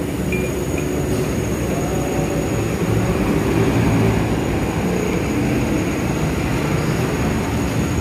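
Steady, dense background noise of the eatery: a continuous low rumble with a thin high-pitched whine running through it.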